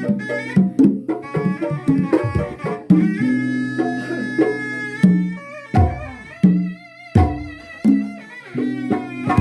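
Traditional Sundanese pencak silat accompaniment: hand drums playing a rhythmic pattern of deep pitched strokes and sharp slaps under a sustained, wavering melody line.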